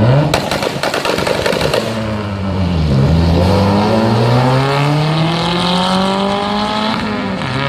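Volkswagen Jetta 1.8T turbocharged four-cylinder with a GT28 turbo revving hard. For the first couple of seconds a rapid string of exhaust pops and crackles rides over the engine. The engine note dips about three seconds in, then climbs steadily under acceleration.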